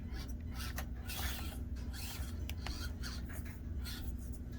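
Axial SCX24 Deadbolt 1/24-scale crawler's small electric drive motor running with a steady low hum, while its tyres scrape and click as they scrabble on the course obstacle.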